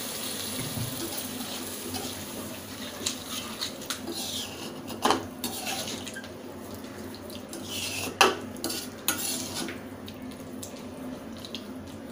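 Metal slotted spoon scraping and clinking against a kadai as a thin sauce with capsicum pieces is stirred, with a few sharp knocks, the loudest about eight seconds in.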